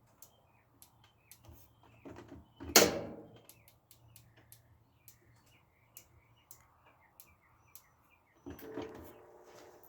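Maytag top-load washer in a manual spin test: a faint steady low hum with scattered light clicks, a loud knock with a short ring nearly three seconds in, and another louder stretch near the end.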